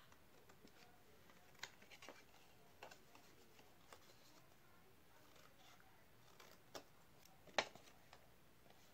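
Near silence with faint, irregular clicks and snips of small objects being handled by hand; the sharpest click comes near the end.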